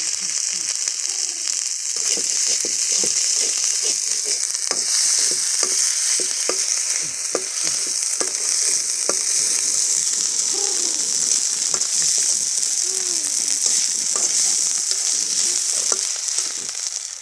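Small fish frying in a pan with a steady sizzle, stirred with a spatula that scrapes and knocks against the pan about once or twice a second.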